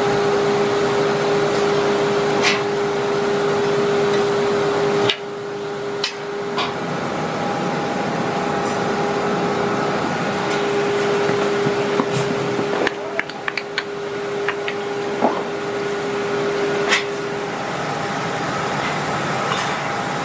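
Factory workshop machinery running with a steady hum and a held humming tone, with scattered sharp clicks and knocks. The background changes abruptly twice, about five seconds in and again near thirteen seconds.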